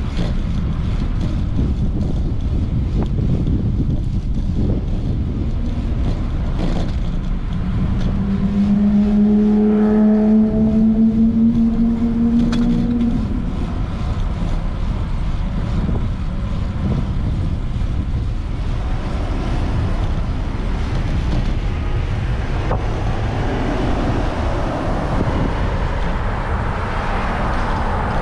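Street traffic heard from a moving bicycle: a steady low rumble of passing cars. One vehicle passes close about a third of the way in, its engine note rising slightly before fading.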